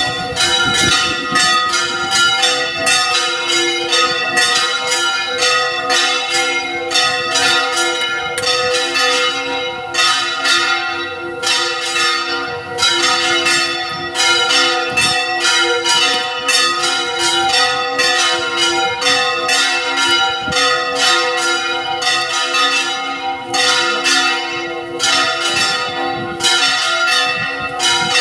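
Church bells ringing a continuous peal of rapid strikes, several a second, each blending into the lingering ring of the last.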